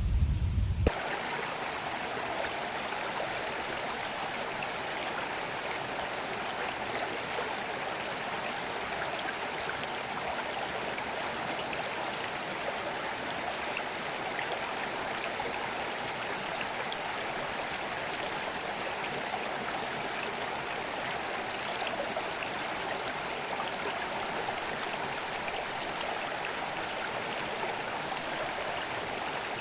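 Creek water running steadily over stones, an even rushing babble. A low rumble from a different recording cuts off suddenly about a second in.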